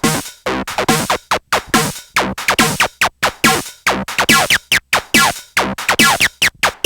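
Live techno played on hardware synthesizers and samplers: rapid chopped synth stabs cut off by short silent gaps, some notes with falling sweeps, and no heavy kick drum underneath.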